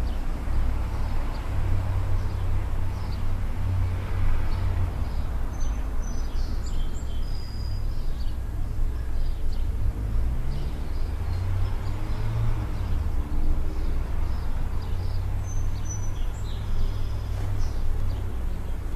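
Outdoor background noise: a steady low rumble with a few short, high bird chirps about a third of the way in and again near the end.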